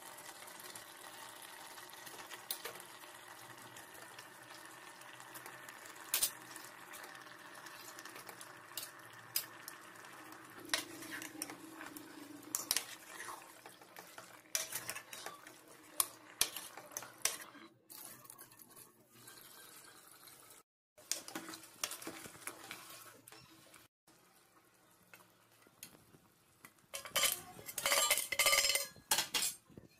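A steel ladle stirring chicken curry in an aluminium pressure cooker, scraping and clinking against the sides of the pot, with a burst of fast, loud scraping near the end.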